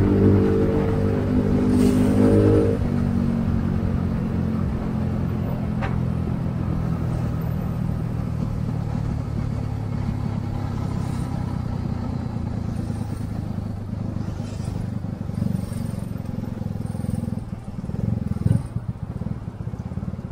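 Small Yamaha motorcycle engine running while riding along a city road, mixed with tyre and traffic noise. The engine note is strongest for the first few seconds, then settles to a steady cruise and eases off near the end.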